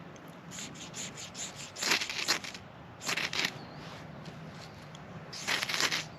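Short rasping scrapes of a knife blade at work, several strokes in uneven groups: one about two seconds in, a pair about a second later, and a cluster near the end.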